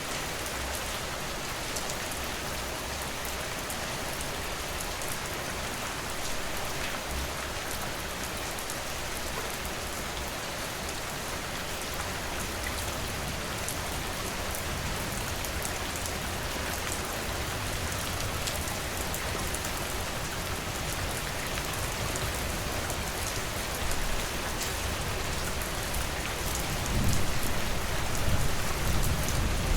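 Steady rain falling, an even hiss with scattered drops ticking. A low rumble swells in the last few seconds.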